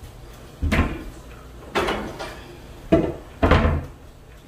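Kitchen drawers and cupboard doors knocking open and shut as a knife is taken out: four separate thumps about a second apart, the last two close together.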